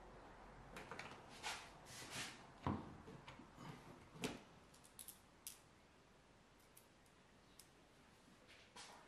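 Faint scattered clicks and light knocks of a sheet-metal firewall plate being positioned against a car's firewall and bolts being fitted into it by hand. The knocks cluster in the first half, two of them louder, then only a few faint ticks.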